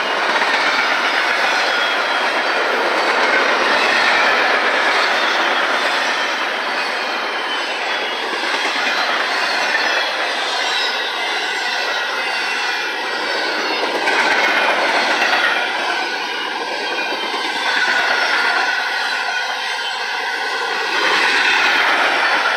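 Double-stack intermodal well cars of a freight train rolling past close by: a steady, loud run of steel wheels on rail that swells and eases a little, with faint high wheel squeal running through it.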